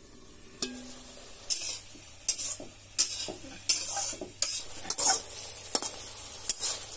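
A cooking spoon stirring and scraping sponge gourd frying in a pan, which sizzles. The strokes come regularly, about one every three-quarters of a second.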